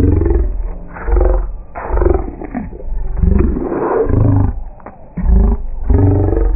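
Cartoon dialogue slowed to about a sixth of normal speed, pitched far down into a deep, drawn-out, roar-like voice in which the words can't be made out. It comes in long swells separated by short gaps.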